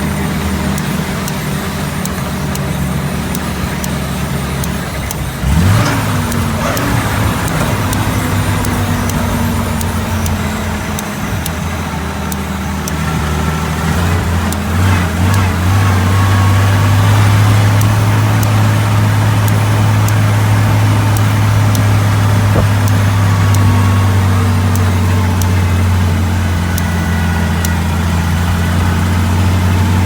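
1942 Dodge WC-52 weapons carrier's flathead six-cylinder engine running under way, with a brief rising rev about five seconds in. The engine grows louder from about fifteen seconds in and then holds a steady note.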